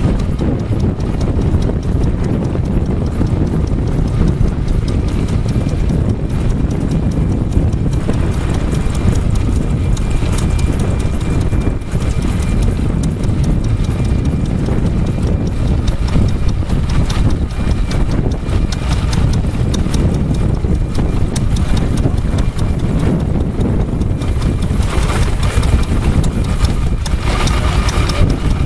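Small stationary engine running steadily, its crank and connecting rod spinning in an open aluminium crankcase, with a rapid, even clatter of knocks.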